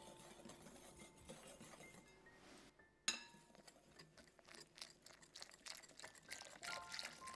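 Wire whisk stirring dry flour in a glass bowl, clinking and scraping against the glass. A sharp clink about three seconds in, then quick repeated taps as milk is poured in and whisked into the flour.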